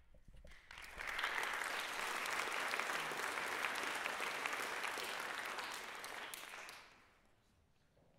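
Audience applauding in an auditorium: the clapping swells in over the first second, holds steady, then dies away about seven seconds in.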